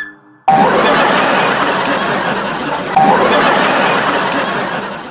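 Canned crowd laughter of many voices starting about half a second in, with a fresh burst about three seconds in.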